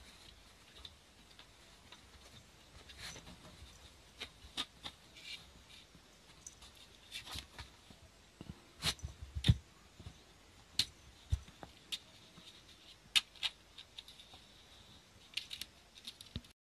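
Irregular light taps and clicks, with a few sharper knocks near the middle, from a black kitten and a Siamese cat playing on a tatami mat: paws and claws striking and scratching the mat.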